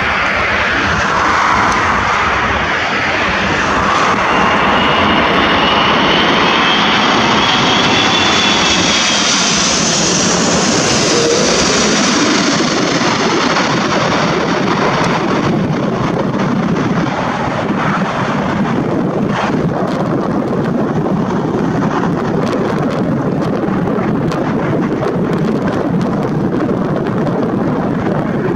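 Airbus A380 jet engines on landing approach: a loud steady rushing noise with a high whine that climbs and then falls as the airliner passes about ten seconds in. The engine noise carries on as the aircraft touches down and rolls out along the runway.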